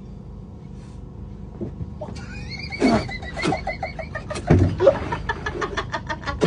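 A horse whinnying: a long high-pitched call starts about two seconds in and breaks into a fast, shuddering run of pulses through the second half.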